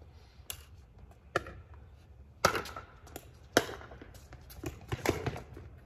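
A pickleball rally: paddles hitting a plastic pickleball back and forth, a string of sharp pops about once a second. The loudest come about two and a half and three and a half seconds in.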